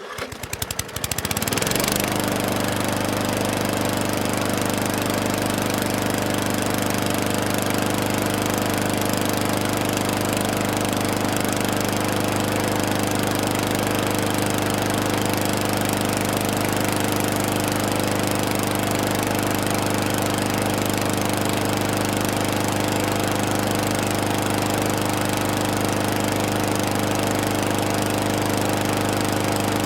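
Gas lawn mower engine, recorded close up, starting with an uneven sputter over the first couple of seconds, then running at a steady speed.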